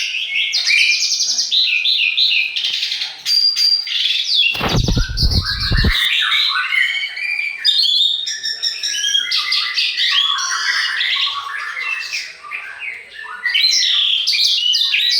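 Several songbirds chirping and trilling at once in a dense, continuous chorus of quick overlapping calls. About four and a half seconds in, a low thudding noise cuts in under the birds for about a second and a half.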